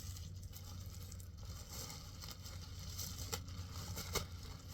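Packaging rustling and crinkling as it is handled and opened, with two sharp clicks late on, over a steady low hum.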